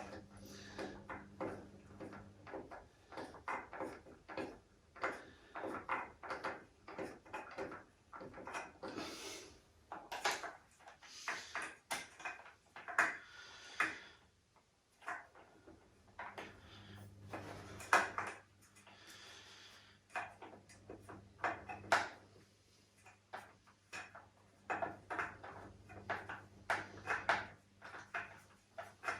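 Hand screwdriver driving stiff screws into the rocker's frame: irregular clicks, knocks and scraping as the screws are turned and the frame is handled.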